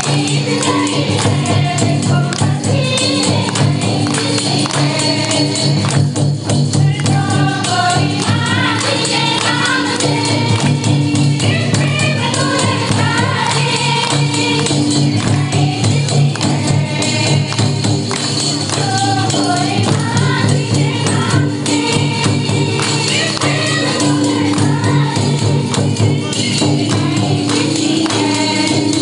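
Group of women singing a Ho-language Christian bhajan together, with two barrel-shaped hand drums beating a steady rhythm and a jingling percussion line running through it.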